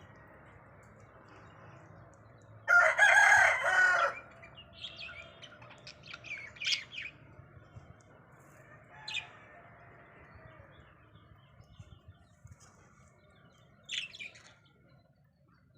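Budgerigars squawking and chirping in a squabble: one loud, harsh squawk of over a second about three seconds in, then scattered short chirps.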